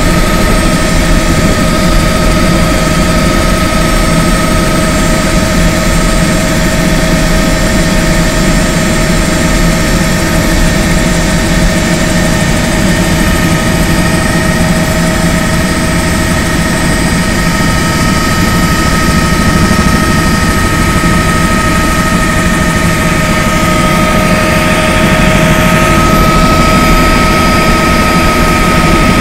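Helicopter cabin noise in flight: the steady, loud drone of the engine and rotors with a level high whine running through it, growing slightly louder near the end.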